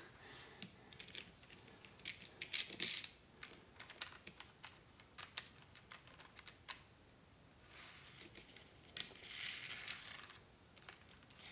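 Faint, irregular light clicks of small plastic Z scale model train cars being picked up and set on the track by hand, with two brief soft rustles as the hands brush the foam scenery.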